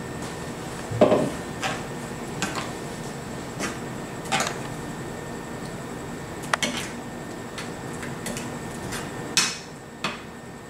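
A spoon clinking and scraping against a frying pan as a thick ground-coconut gravy is stirred, in separate sharp knocks, the loudest about a second in, over a steady background hum.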